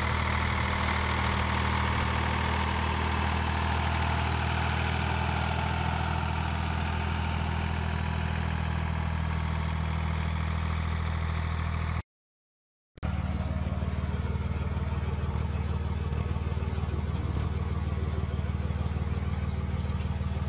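Ford tractor engine running at a steady speed while pulling a two-row precision seed drill. The sound cuts out completely for about a second a little past the middle, then the same steady engine sound resumes.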